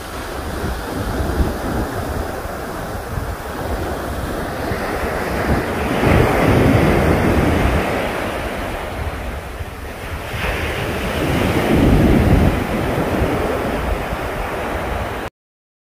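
Sea waves washing and splashing, with wind buffeting the microphone. The sound swells louder about six seconds in and again about twelve seconds in, then cuts off abruptly near the end.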